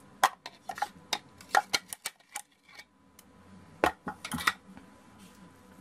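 Irregular sharp knocks and clicks of kitchenware: a plastic food-processor bowl and a silicone spatula tapping and scraping as blended green seasoning is emptied out into a mixing bowl.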